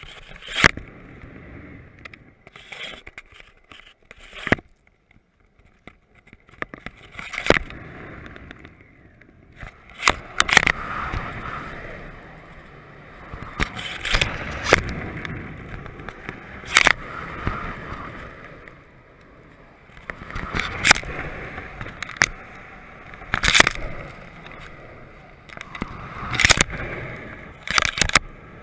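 Wind rushing over a camera slung beneath a flying kite, swelling and easing with the gusts. It is broken at irregular moments by a dozen or so sharp cracks and rattles from the kite rig.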